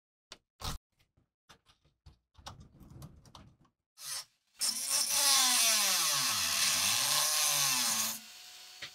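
A few small metal clicks and taps as the knife's guard and tang are handled. About four and a half seconds in, a rotary tool's small cut-off disc grinds into the end of the steel tang for about three and a half seconds, its motor pitch dipping under load and recovering, then it drops to a faint steady run.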